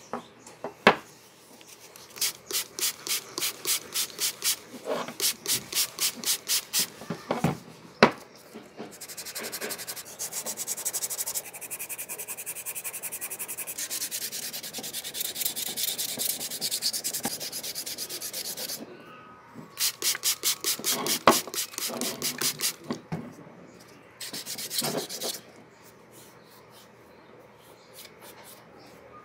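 Sandpaper rubbed by hand along a wooden hammer handle, in runs of quick back-and-forth strokes about three a second, with a longer stretch of continuous rubbing in the middle. A few sharp knocks, the loudest about a second in and about eight seconds in.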